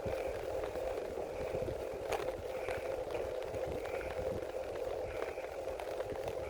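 Bicycle ride: steady tyre hum and road rumble, with a faint chirp repeating about every second and a bit, and one sharp tick about two seconds in.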